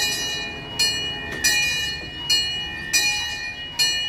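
Zoo train's locomotive bell ringing steadily, about six strikes a little under a second apart, each ringing on and fading, as the train gets ready to pull out.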